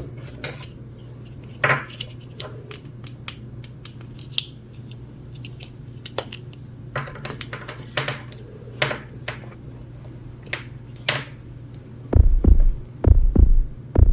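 Hard plastic toy doctor-kit pieces clicking and tapping as they are handled, over a faint steady hum. About twelve seconds in, a toy stethoscope starts playing a recorded heartbeat: repeating low double thumps.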